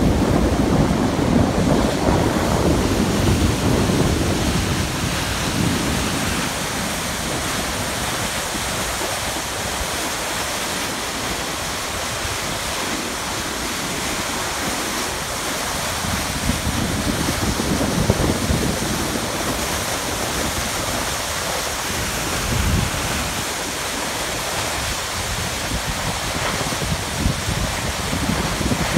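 Waterfall on the Merced River rushing steadily over granite, with wind buffeting the microphone in gusts at the start and a few more times later.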